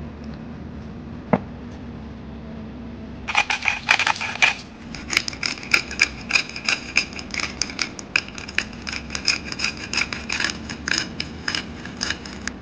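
Black pepper grinder being twisted, cracking peppercorns: a rapid run of gritty clicks starts about three seconds in, pauses briefly, then goes on steadily until near the end. A single small knock comes about a second in, before the grinding.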